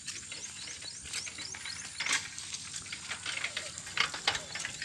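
Footsteps squelching along a wet, muddy path, heard as irregular crackling clicks over a light hiss, with a run of faint, short high chirps in the first couple of seconds.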